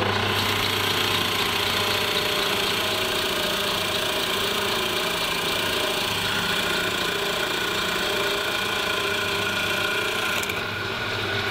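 Pillar drill running steadily while a 35 mm Forstner bit bores through a wooden board, a constant motor hum under a dense hiss of the bit cutting wood. Near the end the cutting hiss drops away and the drill runs on.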